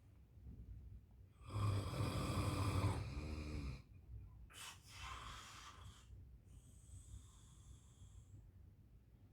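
Someone snoring in three breaths. The first is the loudest and longest and ends in a rattle, and the last is fainter with a thin whistle.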